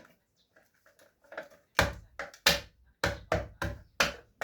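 A series of sharp taps and knocks, hard objects striking, about two or three a second, starting about a second and a half in.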